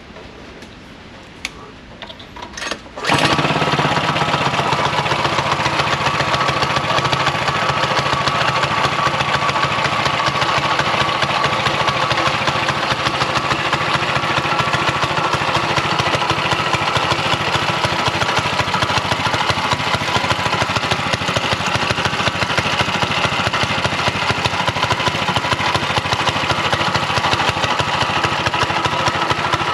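A few clicks, then about three seconds in a mini bike's Predator 212 single-cylinder four-stroke engine starts suddenly and keeps running steadily.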